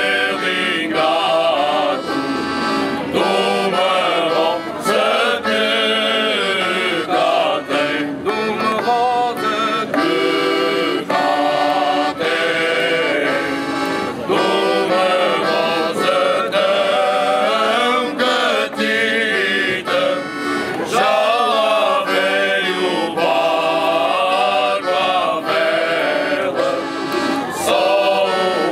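Male group singing Cante Alentejano in chorus, accompanied by a piano accordion and acoustic guitars.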